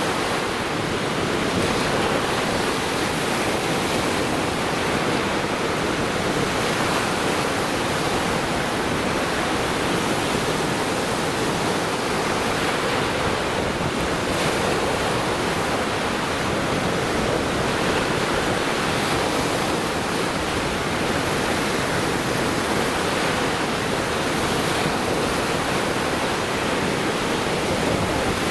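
Lake Michigan surf washing onto the beach, a steady, unbroken rush of waves.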